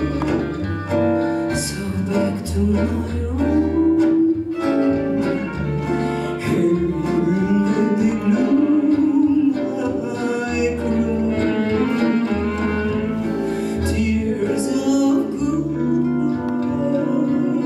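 Live acoustic jazz ensemble: a woman singing over violin, double bass and acoustic guitars.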